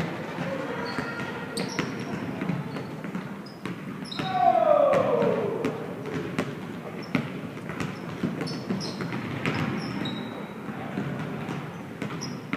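Basketballs bouncing on a gym floor, with short high sneaker squeaks scattered throughout. A loud falling tone comes about four seconds in.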